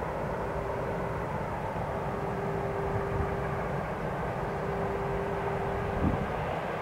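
Diesel locomotive engines idling with a steady low rumble. A faint steady tone sounds on and off, and there is a short thump about six seconds in.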